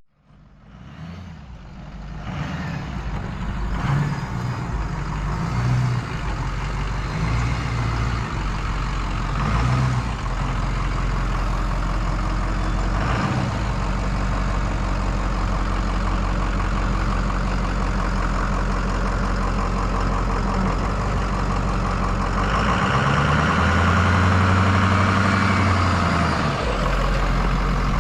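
Heavy truck engine running steadily as it is backed down a slope, fading in over the first couple of seconds and working harder, louder and fuller, for a few seconds near the end.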